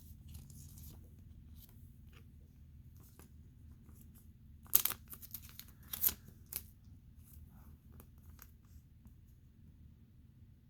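Trading cards being handled and slid into plastic card sleeves: quiet handling with a few short, crisp plastic rustles about five to six and a half seconds in.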